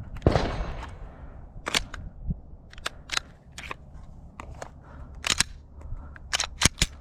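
Sharp clicks and clacks of a Glock pistol being handled to clear a malfunction: one louder clack about a quarter second in, then a scattered series of brief metallic clicks.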